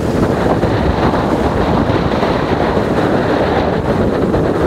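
Strong hurricane wind buffeting the camera's microphone in a dense, steady rush.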